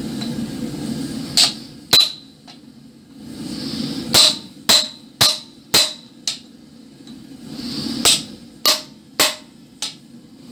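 Hammer blows on a chisel held against a red-hot iron bar on an anvil, cutting a row of notches. Sharp, ringing metal strikes come in three runs of about three, five and four blows, roughly two a second. A steady rushing noise fills the pauses between runs.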